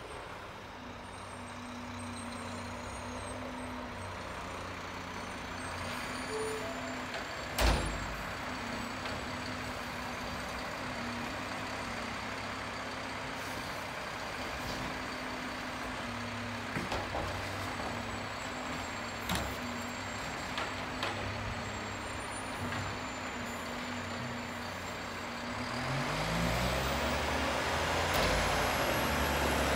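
McNeilus garbage truck's diesel engine running at a distance with a steady hum, with one loud bang about eight seconds in and a few lighter knocks later on. Near the end the engine grows louder as the truck drives closer.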